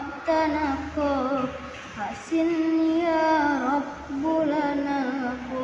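A boy's voice singing sholawat solo without accompaniment: long, ornamented Arabic devotional phrases with wavering pitch, with brief breath pauses about two seconds and four seconds in.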